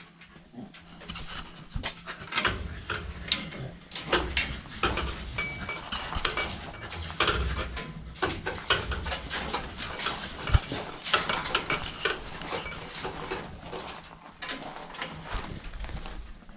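A beagle-type hound moving about close by, among many irregular scuffs and clicks of footsteps on concrete and gravel.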